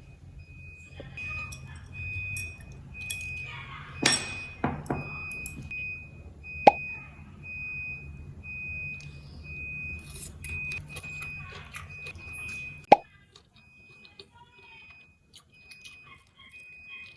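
A steady low machine hum with clinks and knocks of things being handled. The hum cuts off with a sharp click near the end.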